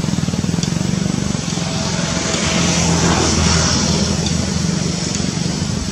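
A motor vehicle's engine running with a steady low hum, growing louder a little past halfway and then easing off.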